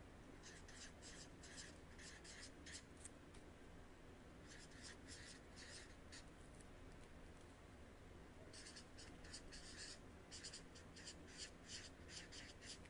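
Faint scratch of a chisel-tip felt marker drawn across paper in quick short strokes, coming in three spells of writing with pauses between.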